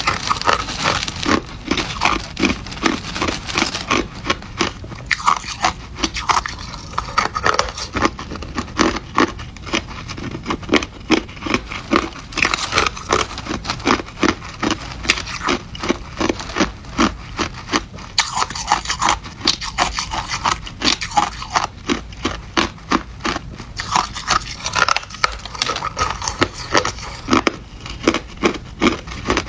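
Hard crushed ice being bitten and chewed: a quick, unbroken run of sharp, crackly crunches.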